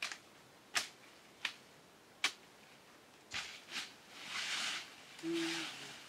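Four sharp cracks of tree branches being cut, about three-quarters of a second apart, then the louder swish and rustle of leafy branches being pulled down through the foliage.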